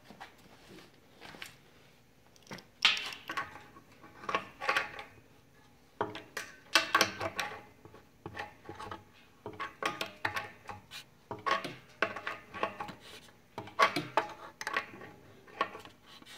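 Small adjustable wrench tightening a brass pressure relief valve into a steel compressor tank: short clusters of metal clinks and scrapes, recurring every second or two.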